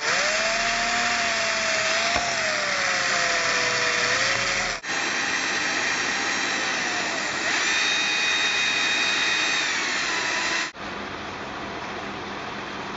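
Cordless drill spinning a wire brush against the rusty steel underside of a table, scouring off rust; the motor's whine sags in pitch under load. The grinding cuts out abruptly twice, and after the second cut, near the end, only a quieter steady hiss remains.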